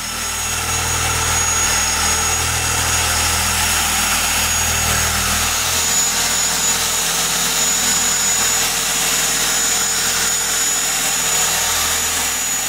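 Electric dual-action polisher (LC Power Tools) running steadily, its pad spinning against a car's painted bumper during machine polishing to remove sinkage texture: a constant motor hum and whine. The deepest part of the hum drops about halfway through.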